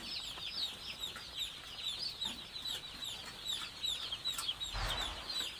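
A large flock of day-old chicks peeping without pause, a dense chorus of short, high, falling peeps. A brief dull bump near the end.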